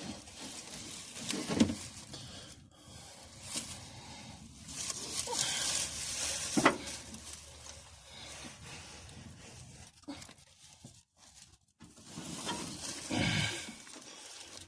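Hand-tool work on the starter bolts of a 1979 Ford Bronco: scraping and knocking of tools on metal, with two sharp metallic clanks about five seconds apart and heavy, strained breathing of effort in between.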